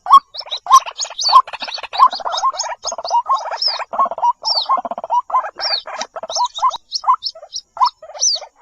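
White-breasted waterhens calling: a continuous, fast stream of repeated croaking notes, with short high squeaky notes laid over them.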